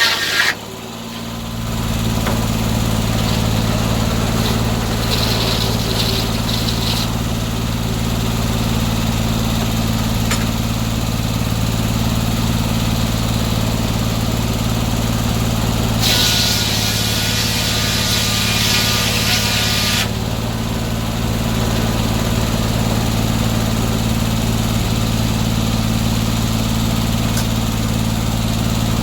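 Gas engine driving a circular sawmill runs steadily. A saw cut ends about half a second in, and the blade cuts wood again for about four seconds past the halfway point, as a loud hiss over the engine. The blade is set up skip-tooth, running 24 of its 48 inserted teeth.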